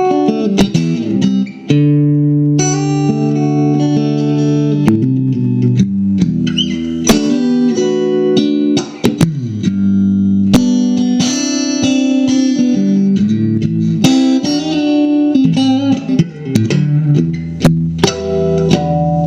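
A 1983 Fender Elite Stratocaster electric guitar being played: picked chords and single notes with sharp attacks, some notes held and ringing, a few bent in pitch.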